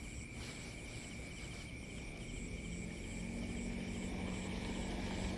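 Night insect chorus: a steady high trill with faster pulsing chirps above it, over a low rumble. A low steady hum joins about halfway through.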